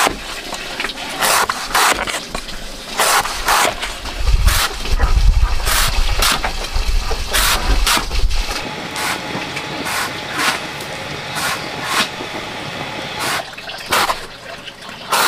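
Large knife slicing a fresh bamboo shoot into thin rings against a wooden block: a series of crisp, irregular cuts, about one or two a second. A low rumble runs under the cuts from about four to eight seconds in.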